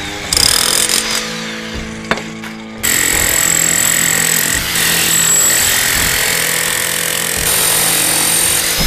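Bosch DH507 10-amp SDS-Max electric demolition hammer hammering in short bursts, then running continuously from about three seconds in.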